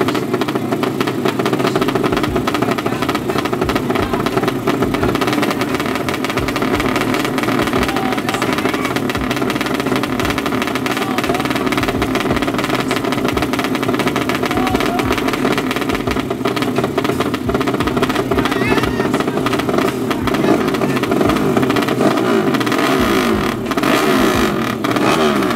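Two drag-race motorcycle engines running loudly and being revved on the start line, the revs climbing near the end.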